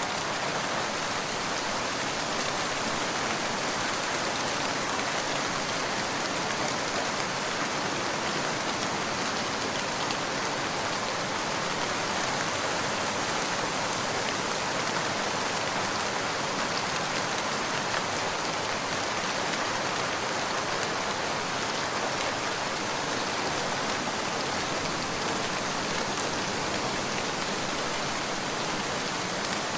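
Steady rain falling on a surface, an even hiss with fine scattered drop ticks.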